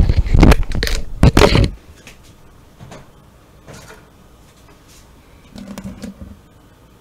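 A stainless steel mixing bowl clattering and knocking against the counter as it is handled and set down, a cluster of loud metallic knocks in the first two seconds. Then a few faint knocks and handling noise.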